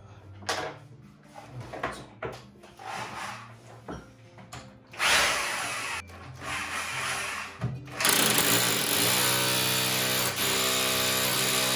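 Electric power drill boring into a wall. There are two short bursts about five and six seconds in, then a steady run of drilling that stops near the end.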